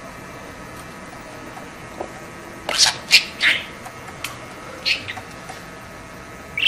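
Pet budgerigar chattering in a run of short, high chirps starting near the middle, over a faint steady background hiss.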